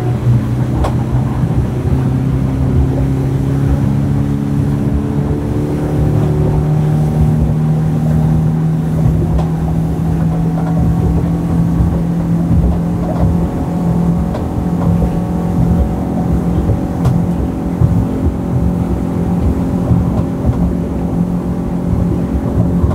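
Mercury 150 Pro XS outboard motor at full throttle, driving a four-blade Revolution 4 stainless steel propeller on a speedboat. Its pitch rises over the first several seconds as the boat accelerates, then holds steady at top speed, limited to about 5350 rpm on this propeller. Wind buffets the microphone.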